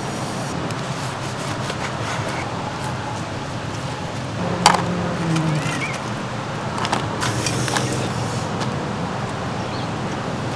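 Steady mechanical rumble of construction work at the campsite, engine-like, with a few light clicks of utensils against the plate.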